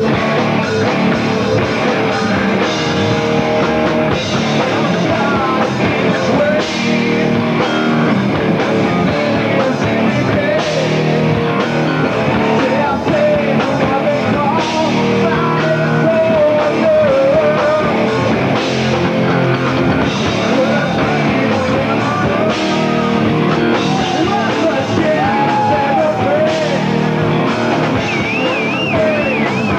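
Rock band playing live and loud: distorted electric guitars, bass and drums, with a singing voice over them.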